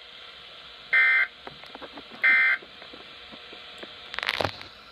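Weather radio sounding the digital alert header of a severe thunderstorm warning: two short, harsh data-tone bursts about a second and a half apart, over steady radio hiss with faint crackles. A brief louder burst of noise comes near the end.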